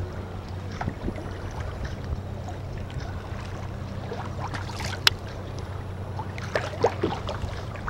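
Small waves lapping and splashing around a kayak on open lake water, with scattered small ticks and a steady low hum underneath. A single sharp click about five seconds in.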